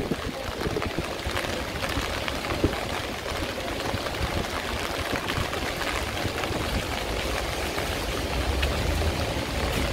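Heavy rain falling steadily on a city street, a dense patter of drops, with the low rumble of passing traffic rising near the end.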